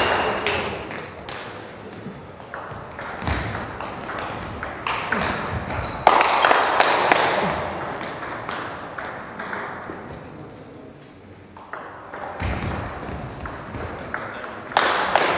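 Table tennis ball being struck back and forth in a doubles rally: sharp clicks of the ball off the paddles and the table, in rapid alternation, with pauses between points.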